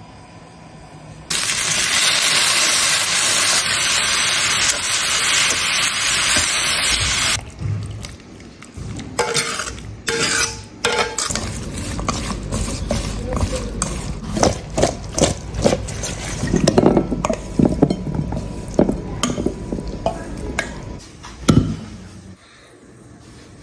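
Hot oil sizzling loudly for about six seconds. Then chopsticks toss smashed cucumber with its seasonings in a metal bowl, making a run of quick clicks and clinks against the bowl.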